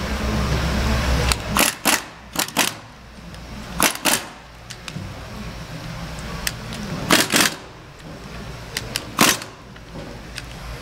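Pneumatic impact wrench fired in about five short bursts, loosening the 1¼-inch nuts on a gate valve's stem seal housing. A low steady drone cuts off just before the first burst.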